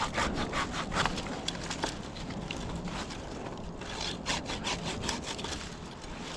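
Hand pruning saw cutting through wood in quick back-and-forth strokes, with a short pause between runs of strokes.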